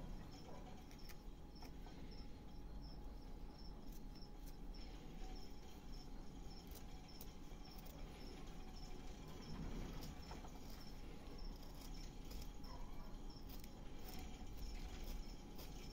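Small hand gouge cutting into a wooden block: faint scrapes and little clicks as the blade takes off chips. Behind it, a high chirp repeats steadily about twice a second.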